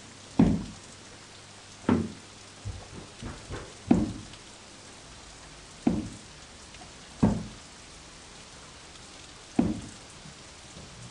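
A series of dull single thuds or drips at uneven intervals, about nine in all with a few fainter ones, each dying away quickly over a low steady hum.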